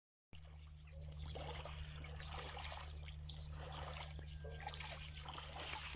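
Soft trickling and lapping of shallow water as domestic geese swim and dabble, over a steady low hum.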